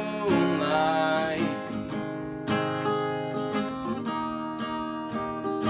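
A man singing a held, wavering note over a strummed acoustic guitar, the voice dropping out after about a second and a half and leaving the guitar strumming alone.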